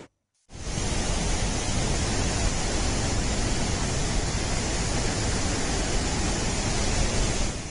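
Floodwater rushing through a river or spillway: a loud, steady, even hiss of water that starts about half a second in and cuts off abruptly near the end.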